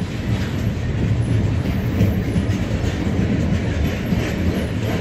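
Freight train of loaded car-transporter wagons rolling past, a steady rumble of wheels on the rails with faint knocks.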